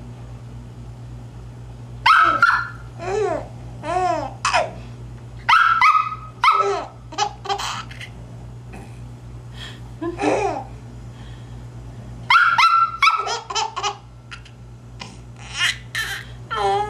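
A baby with the hiccups laughing in repeated bouts of short, high giggles, several bouts spread through the stretch with pauses between them.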